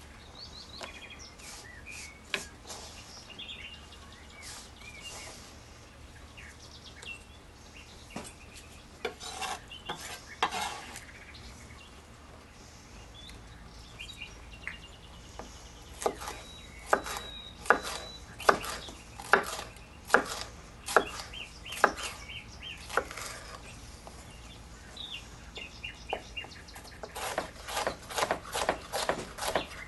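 Chef's knife chopping peppers on a wooden cutting board. Scattered knife strokes give way, about halfway in, to a regular run of chops about one a second, then a quicker run of about four chops a second near the end. Birds chirp faintly in the background in the first few seconds.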